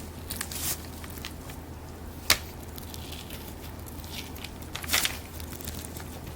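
Knife scraping and sawing back and forth between salmon skin and flesh on a cutting board, with soft wet crackles as the skin comes away. There is a sharp knock about two seconds in and a louder scrape near five seconds, over a steady low hum.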